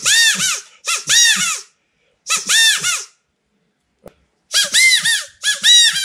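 Homemade wooden quail call with a rubber-band reed, blown by mouth as a test: short squeaky bursts of two or three notes, each note quickly rising and falling in pitch, imitating a California quail's locating call. Five bursts, with a pause of about a second and a half midway.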